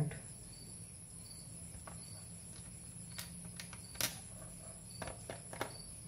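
A few faint clicks and taps from hands working on a laptop's plastic bottom panel, the clearest about four seconds in, over a steady high-pitched background tone and low hum.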